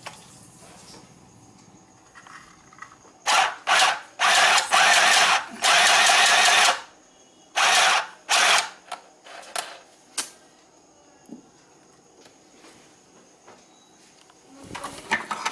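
Mini electric sewing machine running in short stop-start bursts, its small motor and needle going for up to about a second at a time. There are about six runs, starting a few seconds in, then a few fainter ones.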